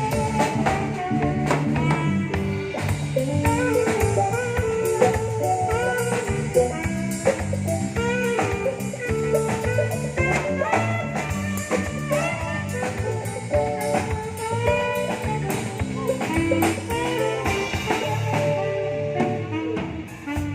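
Live band playing a bluesy tune: a guitar lead with bending notes over drum kit and bass.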